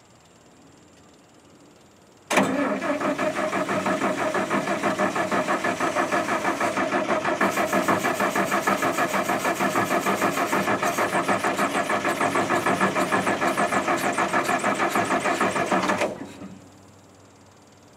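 Starter cranking the International R-185 fire truck's gasoline engine in a quick, even rhythm for about 14 seconds without it catching, then cutting off. The engine has sat for six years, and the owner doubts it has spark.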